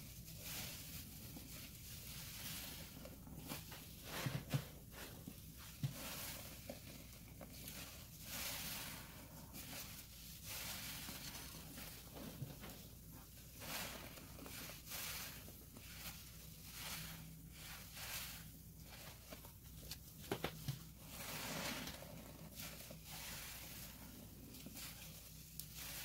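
Dense, suds-soaked sponges squeezed and wrung by gloved hands in soapy pine-cleaner water: repeated wet squelching and fizzing of foam, roughly one squeeze a second. A few sharp clicks stand out twice, a few seconds in and again past the middle.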